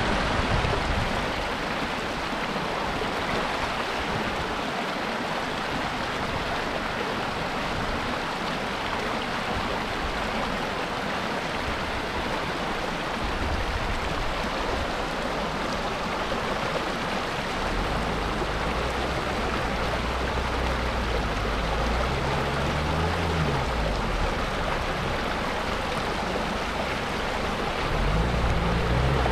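Shallow stream running over rocks. From about halfway an off-road 4x4's engine joins in, its pitch rising and falling as it revs, growing louder near the end as the vehicle comes down the stream bed.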